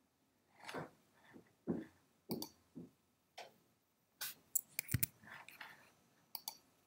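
Scattered soft clicks from operating a computer, a few closely spaced, with softer, lower sounds near the microphone in between.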